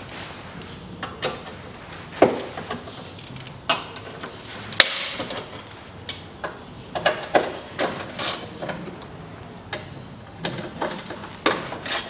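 Ratchet wrench with a socket undoing the bolts of a car's battery tray: irregular ratchet clicks and sharp metal clinks of the tool and bolts, the sharpest about five seconds in.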